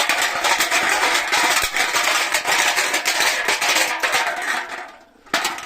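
Homemade noise-training rattle of beer cans tied on string to a stick, shaken hard in a continuous metallic rattle that dies away about five seconds in, then a short shake again near the end.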